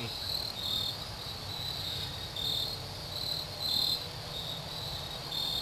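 Crickets chirping: repeated short high chirps, some a little lower in pitch than others, over a low background rumble.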